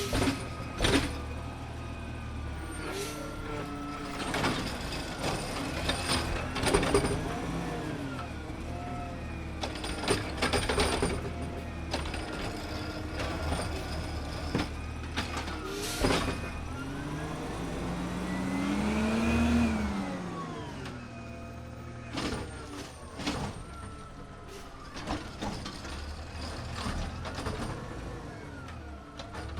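Automated side-loader garbage truck working its robotic arm: the diesel engine runs steadily while metal clanks and thuds come from the arm and bin, and about two-thirds of the way through a hydraulic whine rises and falls as the engine revs to lift and dump the bin.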